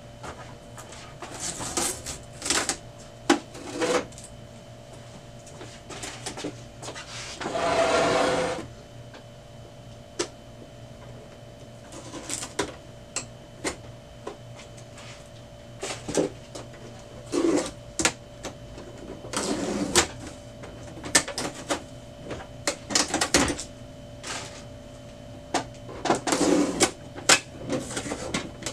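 Protective tape being peeled off a new HP Neverstop Laser MFP 1202w laser printer, with scattered clicks and knocks from its plastic panels as they are handled. There is one longer tearing rip about eight seconds in and shorter rips later, over a faint steady hum.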